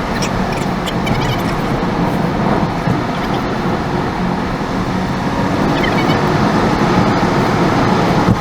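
Steady car road and engine noise while driving, with a few faint short chirps near the start and again about six seconds in.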